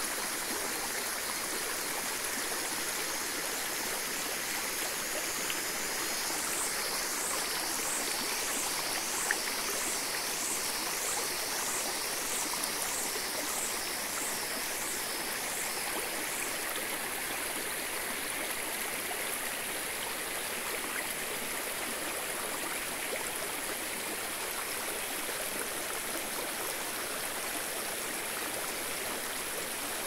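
Shallow forest stream rushing steadily over smooth rock slabs into a pool at a small waterfall. For about ten seconds near the middle, a high chirping call repeats a little more than once a second over the water.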